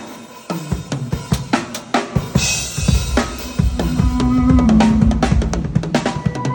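Drum kit played in a run of quick strokes, with a held low note from another instrument joining about halfway through.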